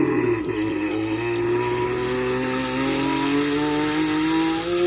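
Sink tap running into a glass, with a steady droning hum from the tap valve or its pipes that slowly rises in pitch over the hiss of the water.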